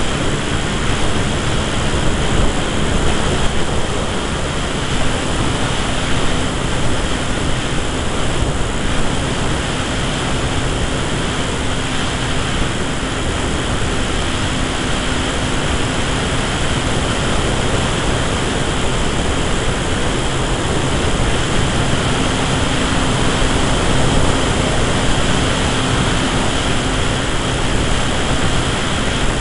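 Wind rushing over the microphone of an onboard camera on an electric radio-control Tiger Moth in flight, with the steady hum of its electric motor and propeller underneath.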